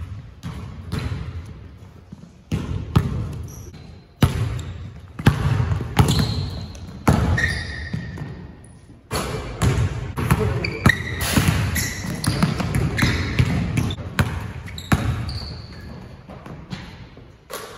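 Basketballs bouncing on a hardwood gym floor, an irregular run of sharp, echoing knocks, with a few short high squeaks in between.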